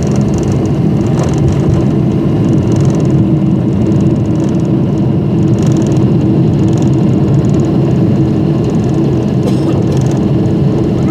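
Jet airliner's engines heard from inside the passenger cabin as the aircraft moves along the ground: a loud, steady drone over a deep rumble.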